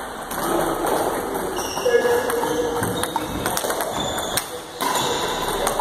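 Table tennis multiball drill: a pause with voices in the hall, then from about three seconds in, quick sharp clicks of balls struck by paddles and bouncing on the table as feeding resumes.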